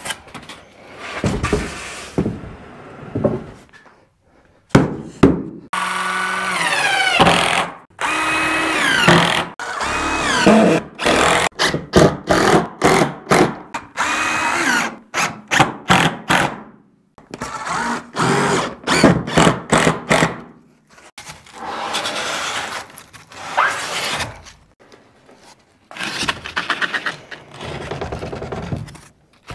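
Cordless drill driving screws with plastic washers through a foam ICF panel into a 2x6, in many short runs, its pitch rising as each one spins up. A few knocks of the foam panel being flipped and handled come first.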